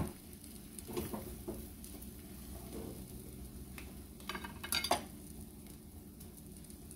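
Utensils knocking on a frying pan and kitchenware: a sharp click at the very start, a few light clinks about a second in, and a quick run of taps a little before five seconds, over a faint sizzle from the egg and spinach torta in the pan.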